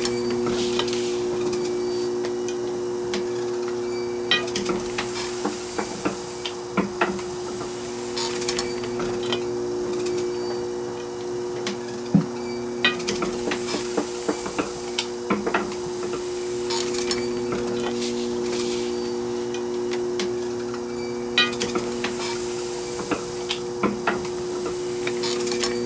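Motor-driven letterpress platen press running: a steady hum under the clacking and knocking of its mechanism, with a brief hiss about every four seconds.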